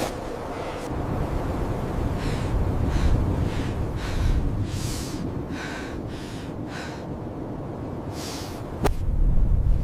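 A person breathing hard in a series of short, gasping breaths over a steady low rumble. A sharp click comes near the end, and the rumble grows louder after it.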